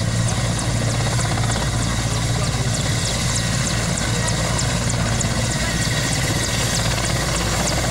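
Mil Mi-8 military helicopter running on the ground with its main rotor turning: a steady, heavy rotor and twin turboshaft engine sound.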